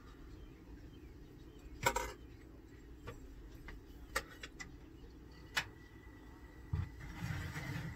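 Scattered light clicks and clinks of a metal spoon and dishes being handled on a kitchen counter, with one louder knock about two seconds in and a short rustle near the end.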